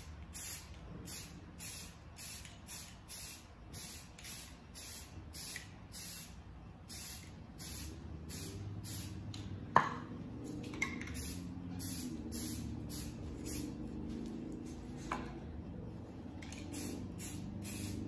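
Rust-Oleum Camouflage aerosol spray paint hissing out in short, quick bursts, about two a second, as a camo pattern is dabbed on freehand, pausing for a couple of seconds near the end. Three sharp clicks sound between bursts, the loudest about halfway.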